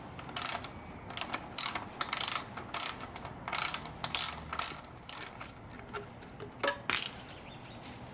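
Socket wrench ratchet clicking in short, irregular runs while backing out the 10 mm bolts that hold an engine's air cleaner body on.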